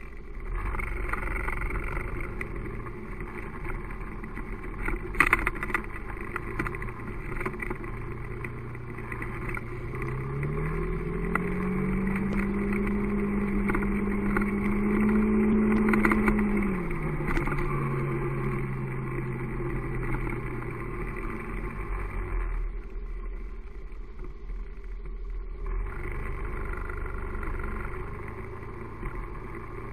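Engine and road noise of the vehicle carrying the camera, driving through city streets: the engine note rises as it speeds up a third of the way in, holds, then falls back. A sharp knock comes about five seconds in, and the sound drops low for a few seconds near the end.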